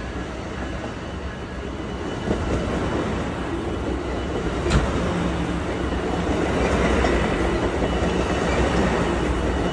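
Amtrak Pacific Surfliner bilevel passenger cars rolling past close by: a steady rumble of wheels on rail, with a sharp click about halfway through.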